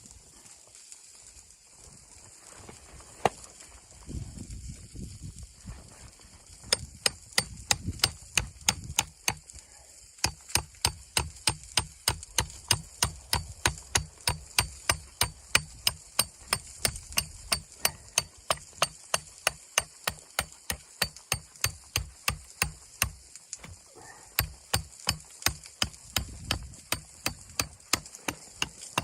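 Footsteps crunching through deep snow at a steady walking pace, about two steps a second, starting about seven seconds in and pausing briefly near the end, over a steady hiss.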